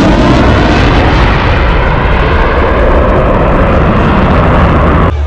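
Boeing EA-18G Growler's twin turbofan jet engines in a loud high-speed pass: a dense, steady jet noise that cuts off abruptly about five seconds in.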